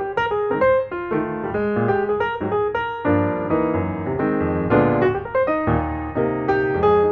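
Intro theme music played on piano: a quick run of single notes, with fuller chords coming in below from about three seconds in.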